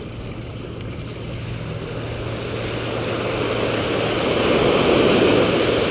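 Surf washing up the beach, a rushing hiss that swells to a peak about five seconds in and then begins to ebb.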